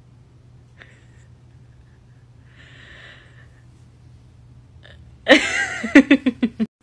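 Quiet room tone with a faint low hum, then, about five seconds in, a short loud burst of laughter in quick pulses that cuts off abruptly.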